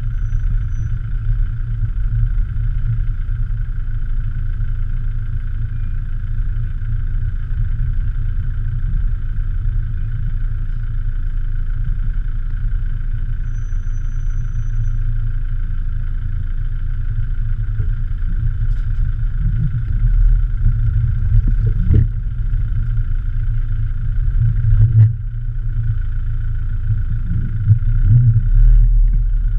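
Land Rover Discovery 300Tdi's 2.5-litre four-cylinder turbodiesel pulling the truck slowly along a rough, rocky green lane, a steady low rumble. A few sharp knocks come in the last third as the truck jolts over the ruts.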